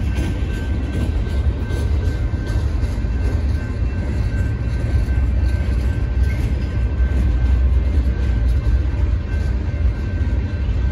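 Union Pacific freight cars (covered hoppers and gondolas) rolling past: a steady low rumble of wheels on rail, with a faint steady high tone over it.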